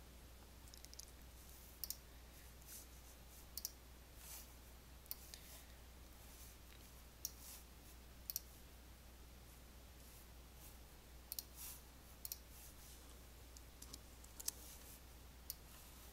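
Computer mouse clicks, about a dozen short, faint, irregularly spaced clicks, over a faint steady low hum.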